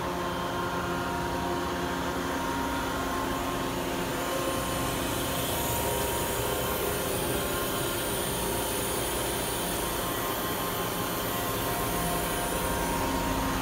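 Steady hum of a powered-up Daewoo Puma 1500SY CNC turn-mill center idling, with several steady whining tones over it. A high hiss comes in about five seconds in and fades near the end.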